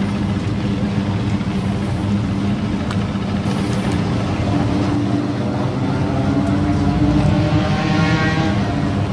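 Boat engine running steadily, with an engine note rising in pitch and growing a little louder over the last few seconds.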